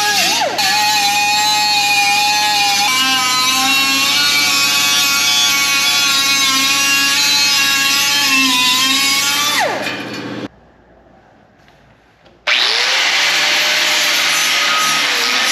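Power tool running on sheet metal, its pitch sagging and recovering as it is pressed into the work. It stops about ten seconds in, and a second run starts about two seconds later.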